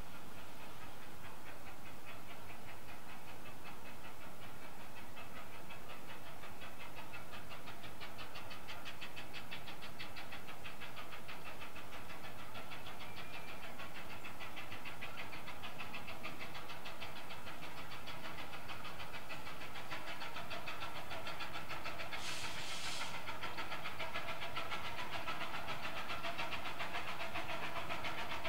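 Exmoor-built 12¼-inch gauge miniature steam locomotive approaching, its exhaust beating in a quick, even rhythm that grows slightly louder as it comes closer. A short hiss of steam comes about two-thirds of the way through.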